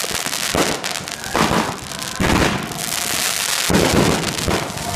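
Fireworks going off in quick succession, a burst about once a second over continuous crackling from the falling stars.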